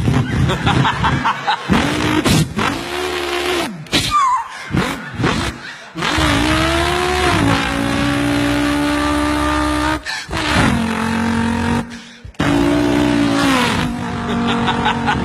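Race car engine at high revs, its pitch climbing and dropping as it accelerates and lifts off, heard in several short clips joined by abrupt cuts.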